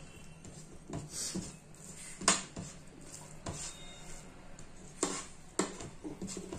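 Mealtime eating sounds: a metal spoon clicking and scraping against a plate as rice is scooped, several short sharp clicks with the loudest about two seconds in.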